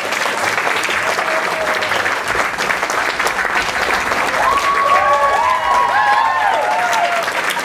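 Theatre audience and cast applauding steadily, with several high voices whooping and cheering over the clapping in the second half.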